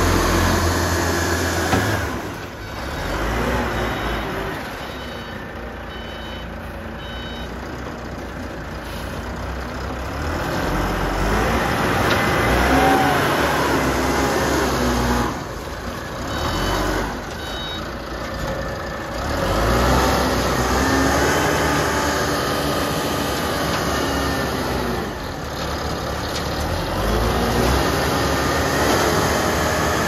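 Engine of a LUTON self-loading concrete mixer running and revving under load as the machine drives and works its loading bucket. A faint beeping warning alarm sounds in two short runs.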